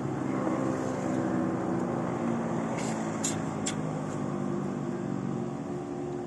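A motor engine running steadily at an even pitch, with three short, sharp clicks close together a little under halfway through.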